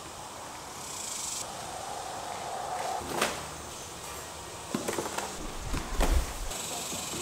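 A heavy cardboard box holding a lawn mower being lifted from a car trunk and set down on a concrete driveway: a few scattered knocks and scrapes, then a heavy thud about six seconds in. A faint high insect buzz in the background.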